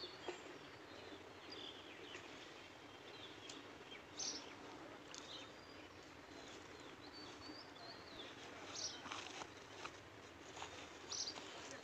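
Faint outdoor background with scattered bird chirps, short high notes here and there, and a few soft ticks.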